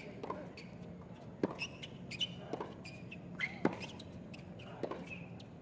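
Tennis rally on a hard court: a racket strikes the ball four times, about a second apart, the loudest strike about two-thirds of the way in.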